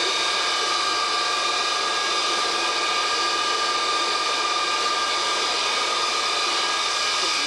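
The Boeing KC-135A's Pratt & Whitney J57 turbojet engines running steadily on a ground maintenance run after a phase inspection, heard from inside the cockpit as a constant whine with several fixed tones.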